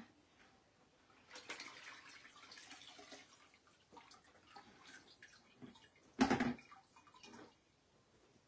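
Water dripping and trickling off a wet, freshly rinsed fabric hat as it is lifted from the rinse bucket onto a towel, with one short thump about six seconds in.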